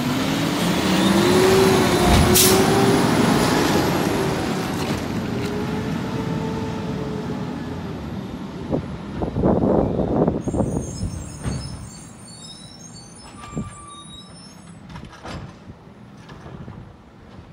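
Peterbilt 320 garbage truck pulling away: a sharp air-brake hiss about two seconds in, then the engine rising in pitch as it accelerates, with a louder rumble about ten seconds in, fading as the truck moves off.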